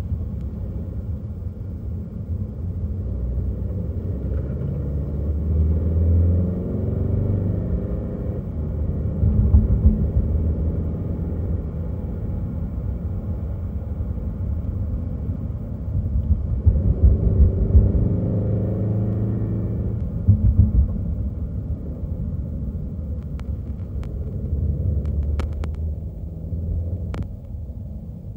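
A car driving on a road: a steady low rumble of engine and tyres, with the engine note shifting in pitch twice.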